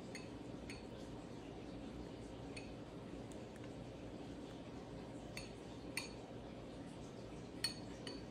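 A metal spoon clinking lightly against a ceramic bowl of melted chocolate, a handful of short, scattered clinks, the loudest near the end.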